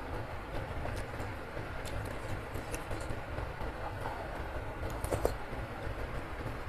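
A metal spoon and fork click against a bowl of instant noodle soup amid chewing. The sharpest click comes about five seconds in. Underneath is a steady hiss and low rumble of heavy rain.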